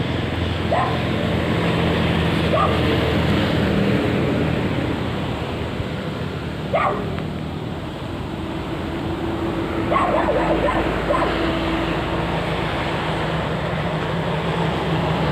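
A handful of short animal calls, the sharpest and loudest about seven seconds in and a quick cluster around ten seconds, over a steady low hum.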